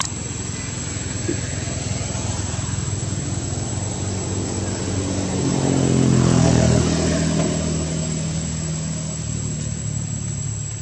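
A motor vehicle engine passing: it grows louder to a peak about six seconds in, then fades away.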